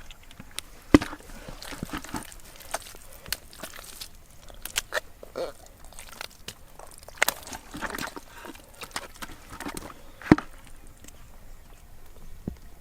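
Irregular crunching, scraping and knocking as earth and mud are dug out by hand, with two sharper knocks about a second in and near ten seconds in.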